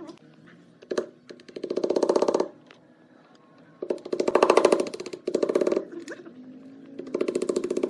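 Handheld power tool running in four short bursts, each a rapid hammering rhythm lasting about a second, with pauses between.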